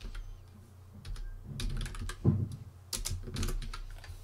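Typing on a computer keyboard: a few short runs of quick key clicks.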